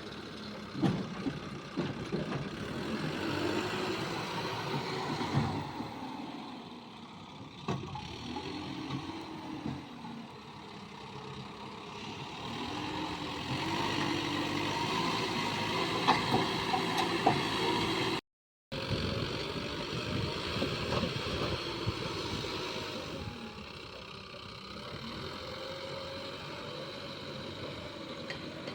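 Heavy diesel engines of backhoe loaders and trucks running, the engine note rising and falling again and again as they are revved. The sound cuts out completely for a moment about two-thirds of the way through.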